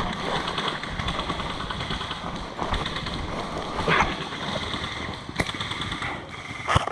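Running footsteps with gear rattling and wind buffeting the body-worn microphone. A sharp click comes about five and a half seconds in, and a quick run of sharp taps near the end.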